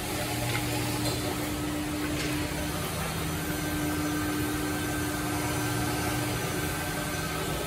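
Multi-spindle CNC drilling and mortising machine running, its spindle motors giving a steady hum with a held tone, which shifts about halfway through as the bits lower toward the wooden rails.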